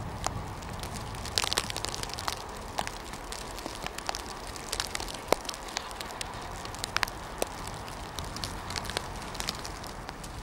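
Irregular crackling and sharp clicks close to the microphone, over a faint steady low rumble.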